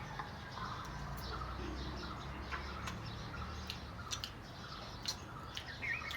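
Birds chirping faintly in the background, short scattered calls with a small rising chirp near the end, along with a few light clicks.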